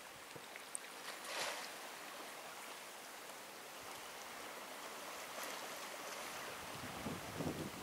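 Faint, steady wash of calm sea water lapping against granite shore rocks, with light wind. A few low wind buffets hit the microphone near the end.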